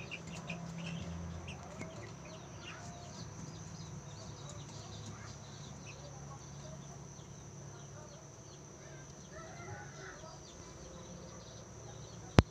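Newly hatching chicks peeping in short, scattered high chirps over the steady low hum of an egg incubator. A single sharp click, the loudest sound, comes near the end.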